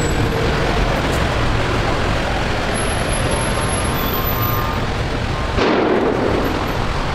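Steady city street noise, mostly road traffic, with no horn or siren standing out. The sound changes abruptly about five and a half seconds in.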